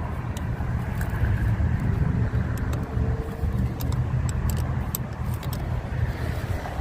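Scattered small metallic clicks and taps of a wrench working the bolt on a car battery terminal, irregular and a few per second at most, over a steady low rumble.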